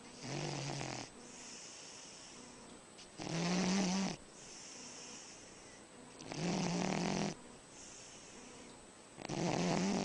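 A sleeping pet snoring: four loud snores about three seconds apart, with softer breathy sounds between them.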